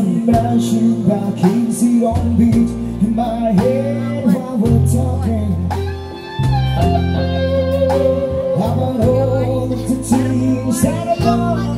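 Live band playing amplified through speakers: electric guitar, drum kit and keyboard, with a male singer on a microphone.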